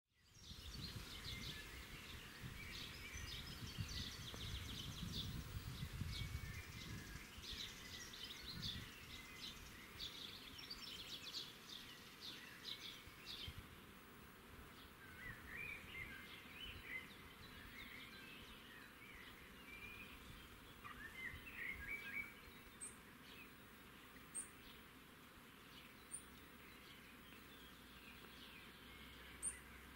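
Faint outdoor ambience of songbirds singing: rapid high trills over the first dozen seconds, then scattered chirps. A low rumble runs under the first several seconds.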